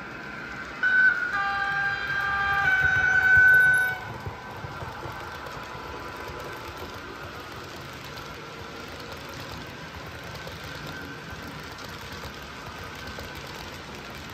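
H0 model locomotive's digital sound decoder sounding a multi-tone locomotive horn for about three seconds, starting about a second in and changing notes twice. Afterwards, quieter steady running noise as the log train passes.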